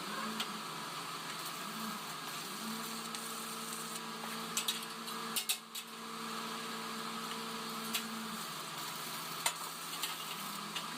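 Electric arc welding: a steady crackling sizzle, dipping briefly about halfway and broken by a few sharp clicks. A steady low hum runs under it for about the middle five seconds.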